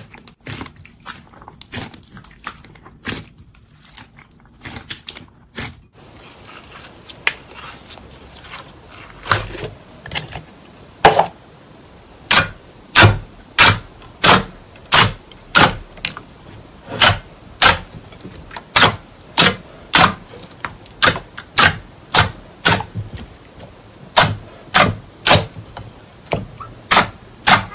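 Slime being pressed and squished by hand in a glass bowl, making wet clicks and pops: scattered and faint at first, then through the second half a regular run of loud pops about twice a second as the fingers push into thick slime.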